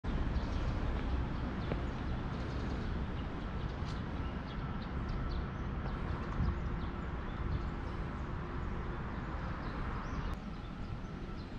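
City street ambience: a steady low rumble of traffic, with birds chirping in short calls from the roadside trees. The rumble eases a little near the end.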